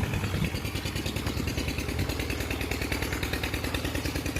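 An engine running steadily with an even, rapid chugging beat.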